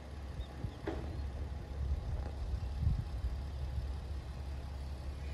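Steady low rumble of a KiHa 40-series diesel railcar's engine running while the train stands at the platform, with a brief click about a second in.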